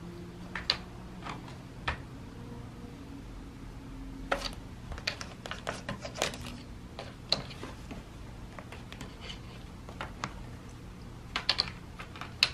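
Irregular light clicks and taps, single ones and short clusters with pauses between, from a playing cat's claws and paws on a hardwood floor and a plastic pet gate, over a faint steady low hum.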